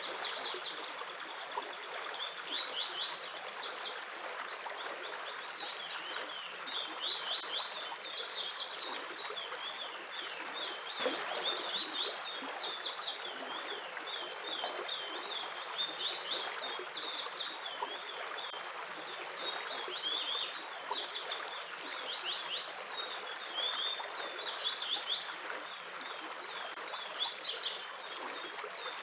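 Several small birds chirping and trilling in quick repeated phrases over the steady rush of flowing stream water.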